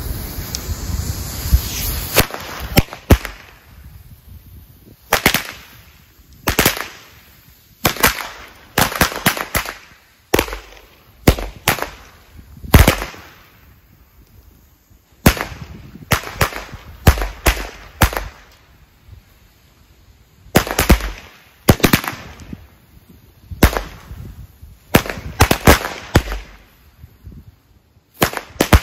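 Broekhoff firecracker chain going off on the ground: after a couple of seconds of hiss, loud sharp bangs come at irregular intervals, singly and in quick clusters of two to four.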